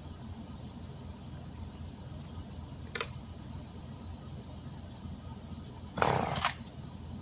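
An engine idling with a low, steady rumble, broken by a sharp click about three seconds in and a short, loud burst near the end.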